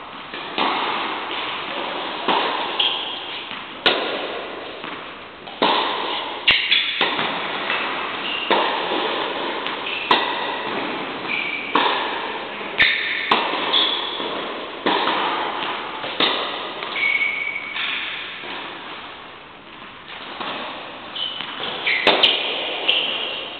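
Tennis rally in an echoing indoor hall: tennis balls struck by rackets with sharp pings and bouncing on the court, at an irregular rally pace, each hit ringing on in the hall.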